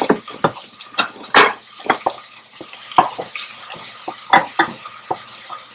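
Wooden spoon stirring onions and garlic sautéing in oil in a stainless steel saucepan: irregular knocks and scrapes of the spoon against the pan, about two a second, over a soft sizzle.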